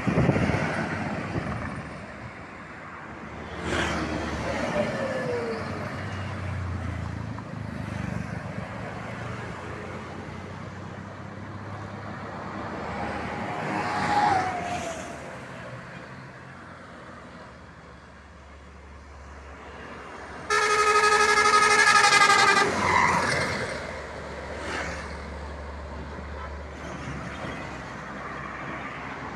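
Heavy vehicles passing on a highway, their running noise swelling and fading with a falling tone as each goes by. About twenty seconds in, a bus sounds a 'tretetet' horn, a loud, rapidly pulsing multi-tone air horn, for a little over two seconds.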